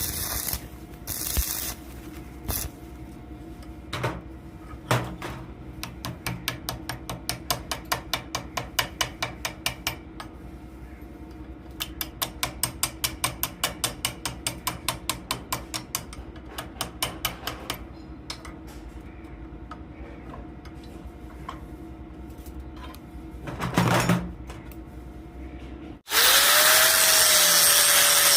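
Runs of quick, even hand-tool strokes on steel, about four a second, with single strokes between them. Near the end a power tool starts suddenly with a rising whine and then runs loud and steady.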